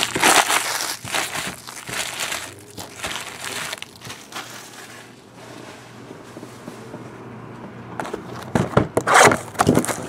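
Plastic crinkling and crackling as trading-card packs and wrapping are handled: busy at first, quieter through the middle, then loud crackling from about eight and a half seconds in as hands take hold of a sealed, shrink-wrapped box of card packs.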